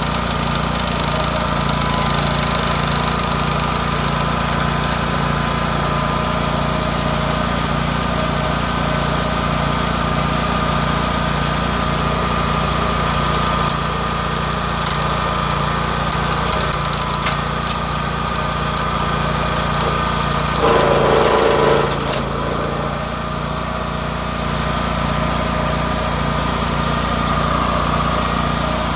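Rayco RG 1625 stump grinder's gasoline engine running steadily while its Greenteeth cutter wheel grinds a stump, throwing wood chips. About three-quarters of the way through, a louder, higher tone rises for about a second and a half, then drops away.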